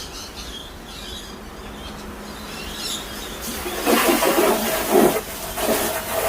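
Storm rain coming down hard, a loud rushing surge that starts about three and a half seconds in and comes in gusts.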